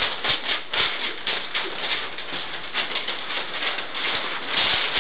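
Sheets of paper rustling and feet shuffling as a group moves about, a stream of small irregular crackles and scuffs.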